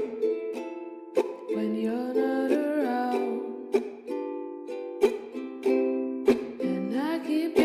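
Ukulele strumming chords, each strum ringing on until the next.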